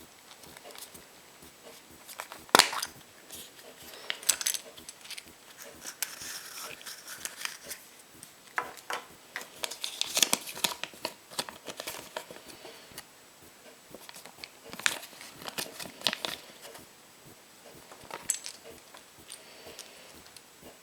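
Foil wrapper of a chocolate surprise egg crinkling and tearing as it is unwrapped, with scattered sharp clicks and taps, the loudest about two and a half seconds in.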